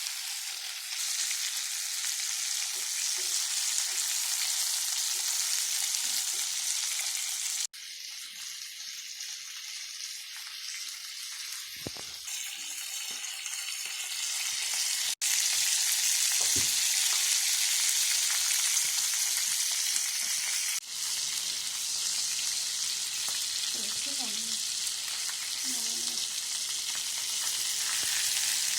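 Pieces of fish frying in hot oil in a pan: a steady sizzle that briefly drops out a few times and is quieter for a stretch of several seconds.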